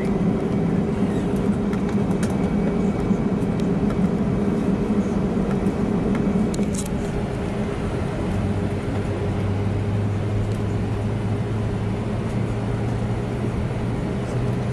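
Jet airliner cabin noise while taxiing: the engines' steady hum and rumble heard from inside the cabin, with a deeper hum joining about eight seconds in.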